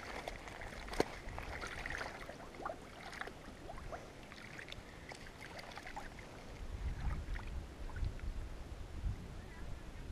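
Shallow water sloshing and small splashes as a fish is eased out of a wet weigh sling at the water's edge, with a sharp click about a second in.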